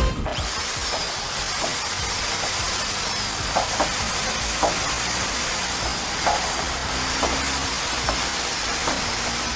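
Steady hissing noise with faint light ticks about once a second.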